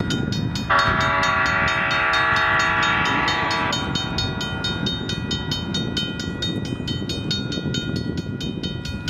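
Locomotive horn of the approaching Wabash F7A-led train, one long blast of about three seconds starting just under a second in. A grade-crossing bell dings steadily at about four strokes a second throughout.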